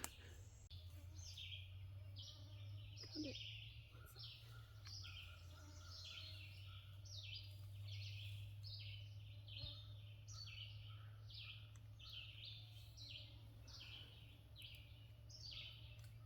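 Faint high chirps from small birds, short falling notes repeating about twice a second, over a low steady hum.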